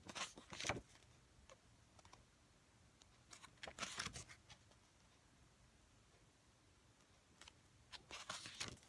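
Pages of a K-pop album photobook being turned by hand: three short crisp paper rustles and flaps, a few seconds apart.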